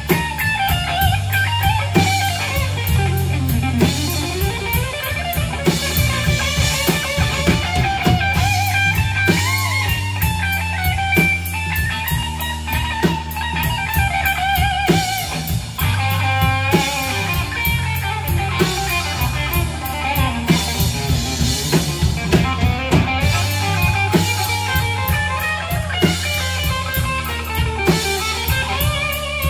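Live rock band playing an instrumental break: electric lead guitar playing bending, wavering notes over electric bass guitar and drum kit.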